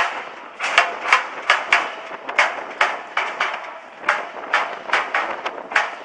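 A rapid, irregular series of sharp knocks or bangs, about two to three a second, without letup.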